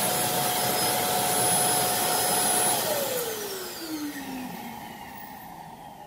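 Roomba i7+ Clean Base auto-empty station running its suction motor with a loud steady whine as it empties the robot's bin. About three seconds in the motor shuts off, and the whine falls in pitch as it winds down and the noise fades away.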